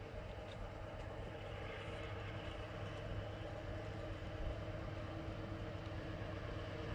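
Diesel locomotive engine running with a steady low hum as it approaches slowly, growing gradually louder.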